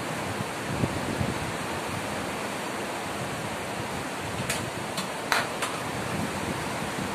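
Steady hiss of background noise, with four short clicks between about four and a half and six seconds in, the third the loudest.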